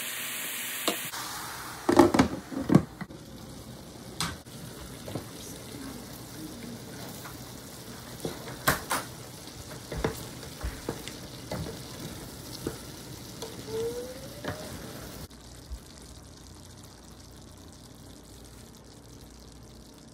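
Wooden spoon stirring lamb and eggplant in a Presto electric skillet. The food sizzles at first, and the hiss cuts off about a second in. After that the stew cooks more quietly while the spoon knocks and scrapes against the pan, a cluster of loud knocks about two seconds in and scattered ones later.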